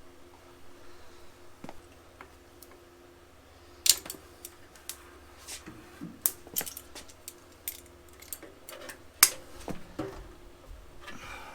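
Scattered sharp metallic clicks and clinks, the loudest about four seconds in and about nine seconds in: a speedometer cable, its sleeve and vice grips knocking against a Vespa scooter's fork and steering head as the cable is worked through and gets hung up.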